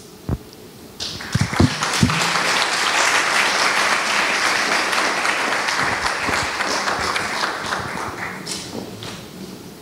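Audience applauding, swelling in about a second in and fading away over the last couple of seconds.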